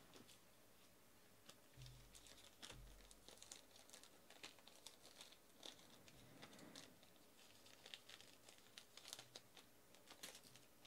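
Faint crinkling and tearing of a trading-card pack wrapper being pulled open by hand, a run of small crackles.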